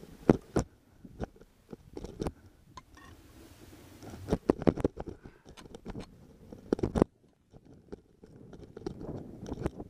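A climber's boots crunching step by step in snow, with knocks from a planted ice axe, in irregular clusters of crunches.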